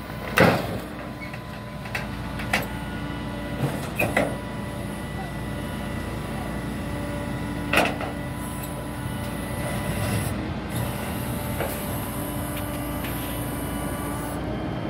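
Flatbed tow truck's engine running steadily to drive its hydraulic winch while the car is pulled up the tilted bed. Several sharp clanks and knocks come through as the car shifts over the curb and onto the bed.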